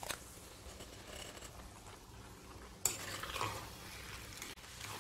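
Metal spoon scraping and clinking against a stainless steel pot while half-cooked rice is spread over fish masala, with a sharp clink about three seconds in.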